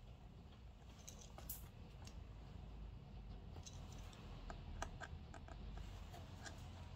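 Faint, irregular light clicks and taps of small hand tools being worked on an iPad during a repair, over a low steady hum.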